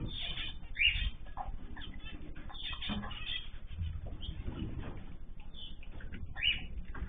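Caged ornamental birds chirping and calling over one another, with short overlapping calls, over a low background rumble.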